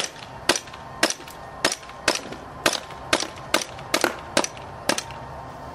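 KJ Works Glock 27 gas blowback airsoft pistol firing about eleven shots at roughly two a second, the string stopping about five seconds in. The shots stop because the cold gas magazine either ran out of gas or got too cold.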